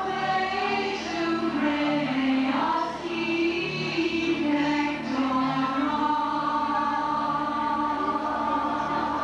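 Choir singing a slow, hymn-like piece, with long held notes through the second half.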